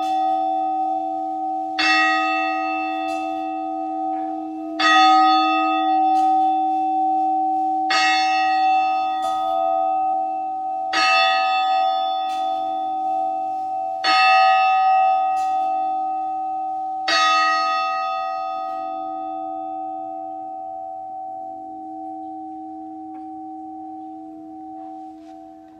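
Large grandfather clock striking the hour: six loud bell-like strikes about three seconds apart, each ringing on into the next. After the last strike the ringing slowly fades away.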